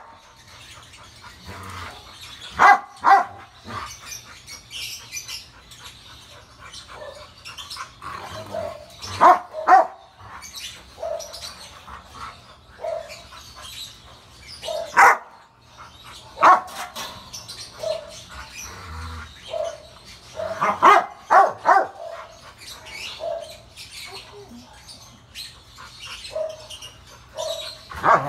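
Rottweiler barking in loud single and double barks several seconds apart, with quieter sounds between them.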